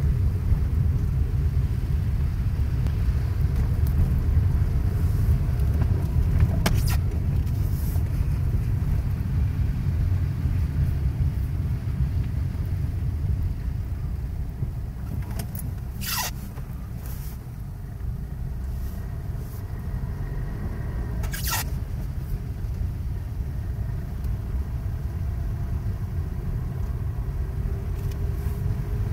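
Steady low road and engine rumble of a moving car heard from inside the cabin, with three short sharp clicks spread through it.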